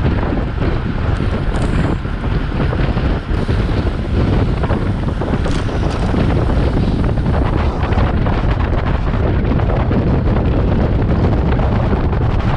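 Heavy wind buffeting the microphone of a camera riding on a racing bicycle at speed, a steady loud rushing.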